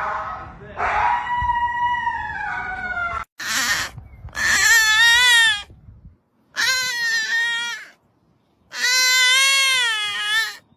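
A husky howling and whining in rising and falling glides. After a short burst of noise, three long, loud, wavering screams follow, each one to two seconds long.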